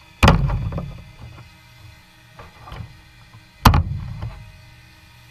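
Hand snips cutting through a plastic gutter overflow: two sharp snaps about three and a half seconds apart, each with a short ringing tail, and a few small clicks between them as the blades are set.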